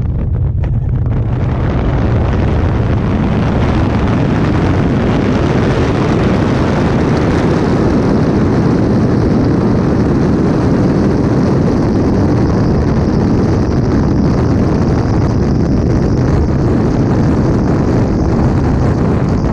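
Loud, steady rush of airflow over a helmet-mounted camera's microphone in wingsuit flight. It builds over the first second after the exit and then holds even.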